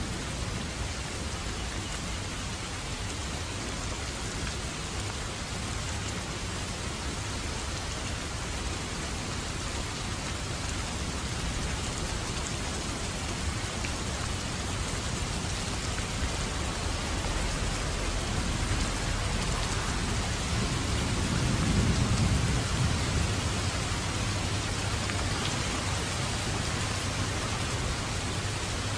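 Steady, dense rainfall, with a low thunder rumble that swells and fades about two-thirds of the way through.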